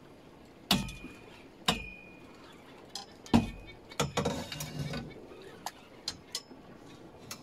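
Three sharp metallic clinks, each with a short high ringing, about a second apart, then a second of scraping rustle and a few lighter ticks.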